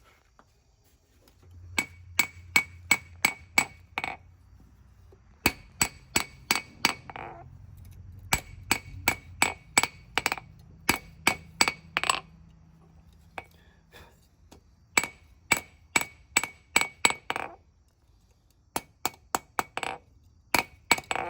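Hand hammer striking hot spring steel on an anvil while a small knife blade is drawn out and widened: runs of sharp, ringing blows, about three a second, broken by short pauses. A low hum sits under the blows through roughly the first two-thirds.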